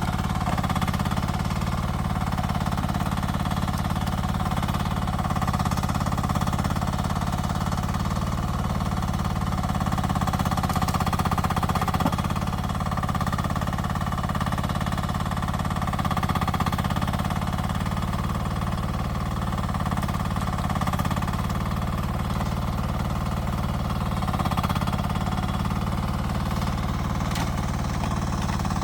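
Rippa R10 mini excavator's small engine running steadily, its pitch dipping slightly a couple of times as it works.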